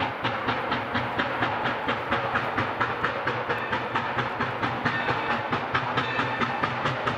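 Chinese-built SY class 2-8-2 Mikado steam locomotive No. 3025 working along, its exhaust beating quickly and evenly at about four chuffs a second. A few high steady tones sound on and off in the second half.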